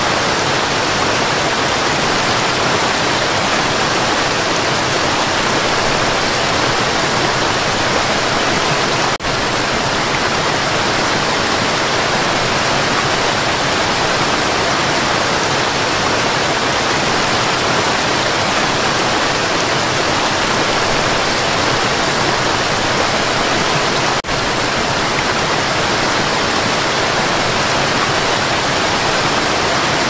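Waterfall: a steady, dense rush of falling water. The level dips for a split second about nine seconds in and again about fifteen seconds later.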